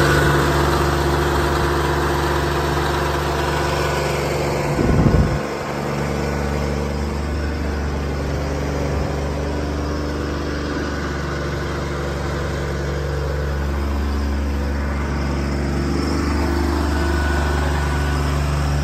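Vanair I300 diesel power unit running steadily, driving the truck's hydraulic crane as it is operated. A short, loud low rumble breaks in about five seconds in.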